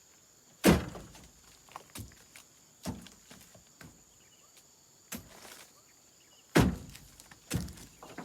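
A series of irregular heavy thuds and knocks. Two are loudest, about a second in and again near the end, with smaller knocks between.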